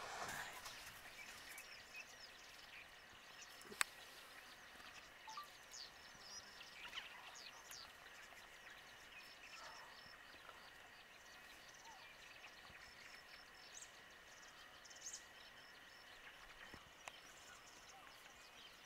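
Quiet bush ambience with faint, scattered bird chirps and short repeated calls, and a single sharp click about four seconds in.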